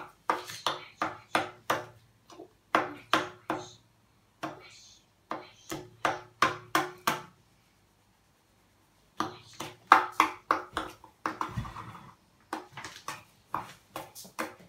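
Plastic spoon knocking against a plastic bowl as slime mixture is mashed: quick runs of sharp taps, a few a second, each with a short ring from the bowl, with a pause of about two seconds midway.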